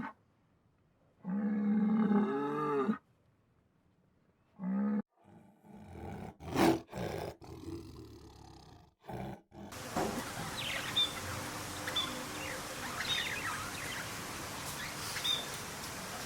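A string of animal calls: a wavering, pitched call, a short call, then a run of rough, noisy calls. Outdoor ambience with brief high chirps follows.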